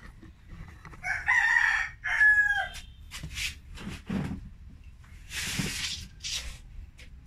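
A rooster crowing once, about a second in, a call of nearly two seconds that ends on a long falling note; it is the loudest sound here. Short scuffing and rustling noises follow in the second half.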